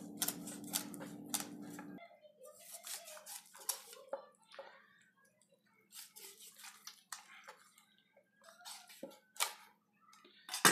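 Kitchen knife cutting the spiny dorsal fin off a whole snapper on a wooden cutting board: scattered scrapes and clicks of the blade against the fin spines and the board.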